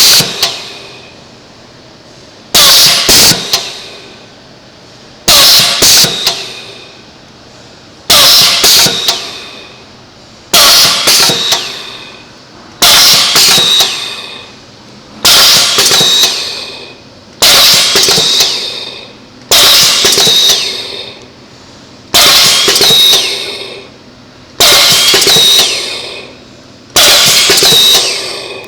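Filling machine running through its cycle, with a loud noise that starts suddenly and fades over about a second and a half, repeating about every two and a half seconds. The uploader treats this noise as abnormal for the machine.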